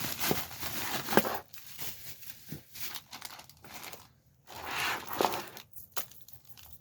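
A small pouch being handled and opened, its material crinkling and rustling in uneven bursts with small clicks, loudest at the start and again near the end.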